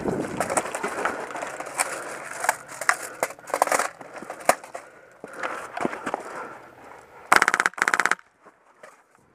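Footsteps crunching through snow and dry grass, with gear rattling, then two short full-auto bursts from an HPA-powered Polarstar airsoft M249 SAW about seven seconds in, the second right after the first.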